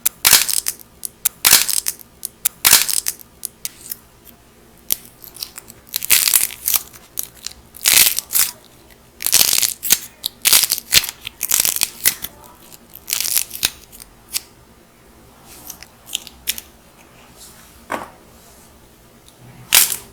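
Dried clay being squeezed and broken apart by hand, crackling and crunching in repeated clusters of sharp cracks with short pauses between them, sparser and quieter in the second half.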